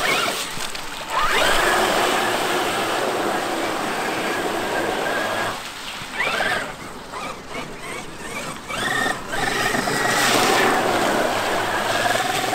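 Electric RC monster trucks' brushless motors whining under throttle. The whine rises in pitch as they accelerate about a second in and again about six seconds in, and holds steady at speed for a few seconds each time.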